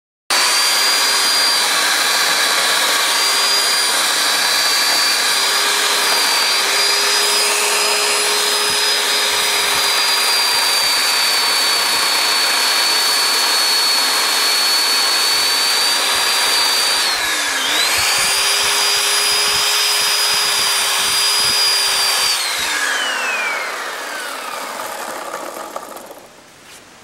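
Electric chainsaw running at a steady high whine while carving a wooden post. Its pitch sags briefly about two-thirds of the way through as the chain bites, then recovers. Near the end it is switched off and winds down, the whine gliding down in pitch until it stops.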